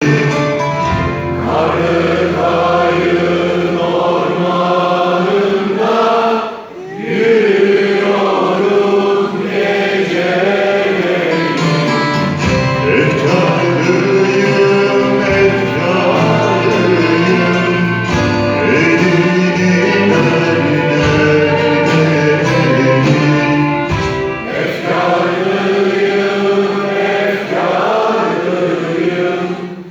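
Live orchestra and choir performing a slow Turkish song, with sustained sung and instrumental lines and a brief dip in volume about six seconds in.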